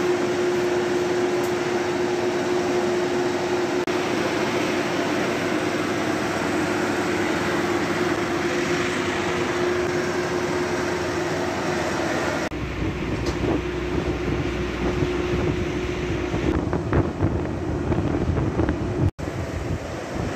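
A steady mechanical hum with one constant tone. About twelve seconds in it changes abruptly to rougher, low, gusty noise.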